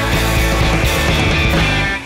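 Rock music with drums and a steady bass line, breaking off abruptly at the very end.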